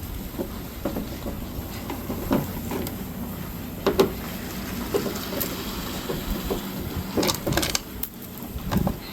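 Scattered clicks and knocks of hands handling tools and small parts during wiring work, the sharpest about four seconds in, over a low steady hum.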